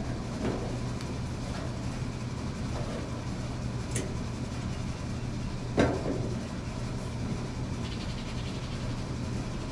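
Metal parts of a solar cooker being handled and fitted: a faint click, a sharp click, then a louder knock a couple of seconds later, over a steady low hum.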